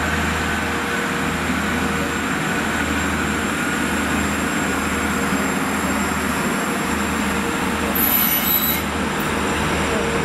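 Transport for Wales diesel multiple unit moving away along the tracks, its engines and wheels running with a steady low rumble. A brief high-pitched squeal comes about eight seconds in.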